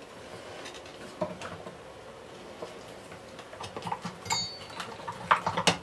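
Scattered light clicks, taps and knocks of a Hoover Senior upright vacuum cleaner's motor and casing being handled during a motor strip-down, with a brief metallic ring about four seconds in and a quick run of sharper knocks near the end.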